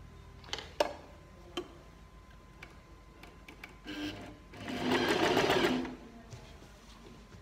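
Riccar electric sewing machine stitching in one short run of rapid needle strokes, about a second and a half long, starting a little past halfway. A few light clicks come before it.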